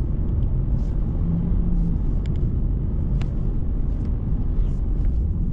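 Car driving on the road: a steady low rumble of road and engine noise, with a brief hum just over a second in and a couple of faint ticks.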